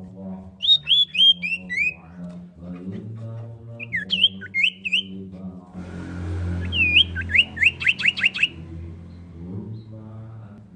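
Common iora (cipoh) singing: a run of about five downward-slurred whistled notes, a short group about four seconds in, then a quick series of sharp downslurred notes near the end. A low, steady hum runs underneath.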